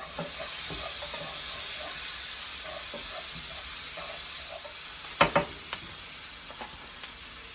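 Onions and peppers sizzling in butter in a skillet, a steady hiss that slowly eases off. A sharp clink about five seconds in is followed by a lighter one just after.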